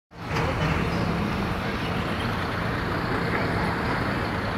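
Steady low engine rumble with a constant hum, mixed with open-air noise.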